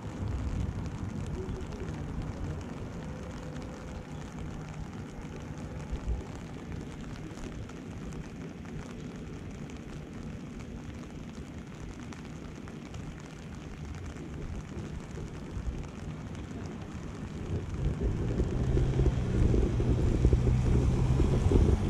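Steady low outdoor rumble. About eighteen seconds in, a louder engine hum with a steady pitch comes in.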